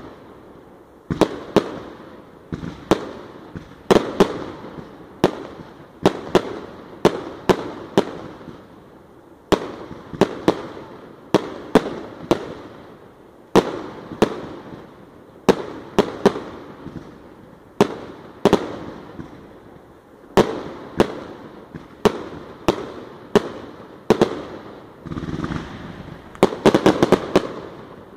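100-shot firework cake (Sunshine King Crown) firing shot after shot: sharp bangs about one to two a second, each with a short trailing crackle. Near the end a rapid flurry of bangs closes the cake.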